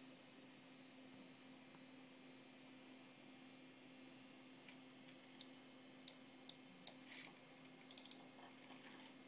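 Faint steady hum of a running Power Macintosh 7100/80 desktop computer, with a few soft mouse clicks in the second half.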